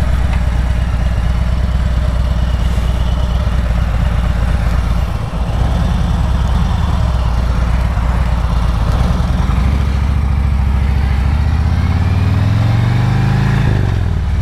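2020 Harley-Davidson Road Glide Special's Milwaukee-Eight V-twin idling steadily at a stop, then pulling away: the engine note rises as the bike accelerates and drops once at a gear change near the end.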